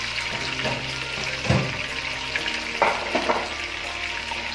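Batter-coated chicken drumsticks deep-frying in hot oil in a wok, their second frying for crispness: a steady sizzle with a few sharper pops.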